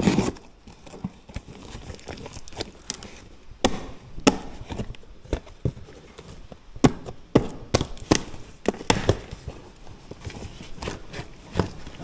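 A heavily taped cardboard box being opened by hand: irregular scraping and ripping of packing tape and cardboard, with sharp cracks and snaps.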